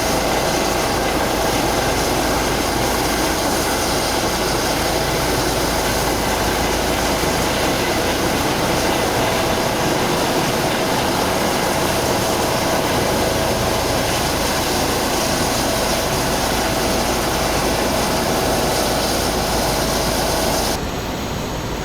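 An engine running steadily, a loud drone with a constant hum, that drops abruptly in level near the end.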